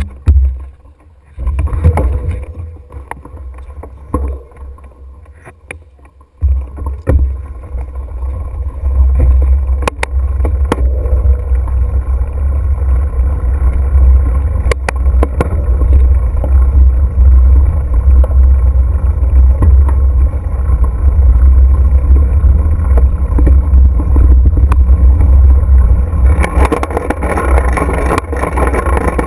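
Wind buffeting a GoPro camera's microphone during a fast mountain-bike descent on a dirt trail: a steady low rumble, with scattered clicks and rattles from the bike over bumps. Quieter with a few knocks for the first several seconds, then steady from about six seconds in, with more hiss near the end.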